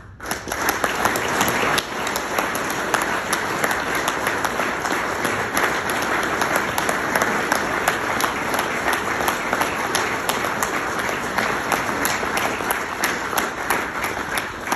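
Audience applauding: dense, steady clapping that starts all at once and keeps up throughout.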